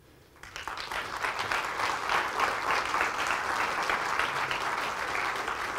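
Audience applauding: clapping starts about half a second in, swells quickly and settles into steady, dense applause.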